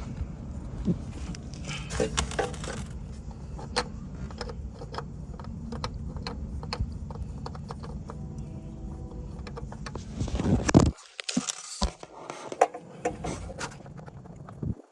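Scattered light clicks and metallic clinks of parts being handled by hand while fitting a motorcycle's oil filter. They sound over a steady low hum that cuts out abruptly about eleven seconds in, followed by a few louder clicks.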